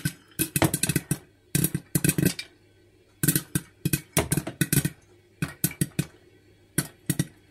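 Popcorn popping in a lidded stainless steel pot: sharp, irregular pops coming in quick clusters with short lulls between them.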